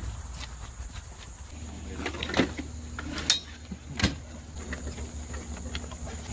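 Gear bags being set down and handled on a plastic folding table: three sharp knocks or clicks, about a second apart, over faint outdoor background.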